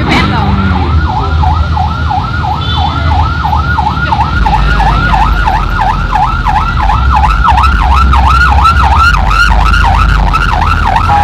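Vehicle siren in a fast yelp, its pitch sweeping up and down about three times a second, over a steady low rumble.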